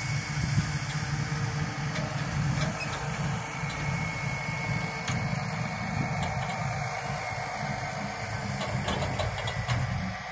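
Farm tractor's diesel engine running steadily as it tows a silage trailer across a field.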